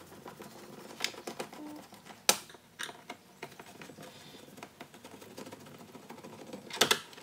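Phillips screwdriver turned by hand backing screws out of plastic dashboard trim: a run of small irregular clicks and ticks, with one sharp click about two seconds in and a quick cluster of clicks near the end.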